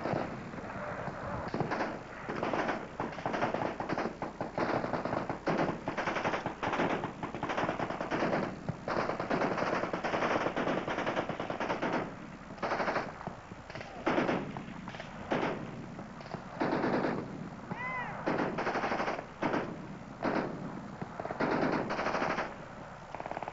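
Machine-gun fire: burst after burst of full-auto shots from the firing line, each burst lasting up to a couple of seconds, with short breaks between.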